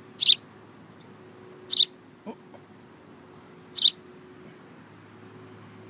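A baby bird giving three short, high calls, spaced about one and a half to two seconds apart.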